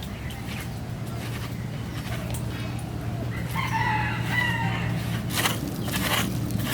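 A rooster crowing once, a single pitched call of about a second and a half, over a steady low hum. A few sharp knocks come near the end.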